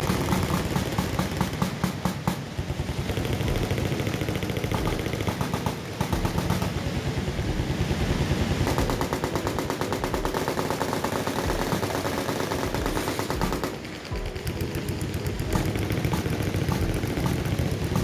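Many machine guns firing at once in long, overlapping automatic bursts, making a continuous rattle of gunfire with a brief lull about 14 seconds in.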